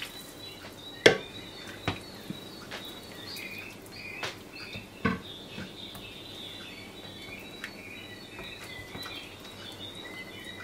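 Spoon stirring a watery stew in an enamelled cast-iron pot, with a few sharp knocks about one, two and five seconds in, over faint high chirping.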